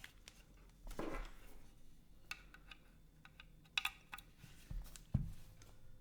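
A few scattered clicks and knocks from a mechanical keyboard being handled and tapped, with a short rustle about a second in and a sharper click with a low knock just after the five-second mark.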